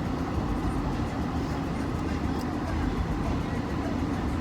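Steady low rumble of a moving vehicle heard from inside, an even road or rail noise with no change in pitch.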